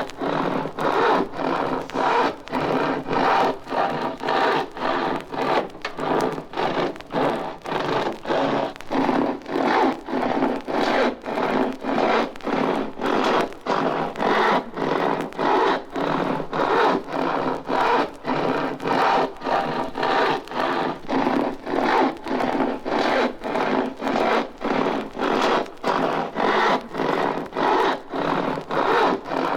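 A long hand saw cutting through wood in steady back-and-forth strokes, about two a second, each stroke a rasp of the teeth through the grain.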